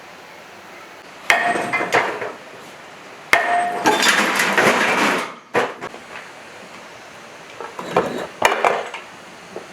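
Metal clanking and rattling of tools and parts on an old diesel engine being taken apart, in three bouts, the middle one about two seconds long and cut off sharply.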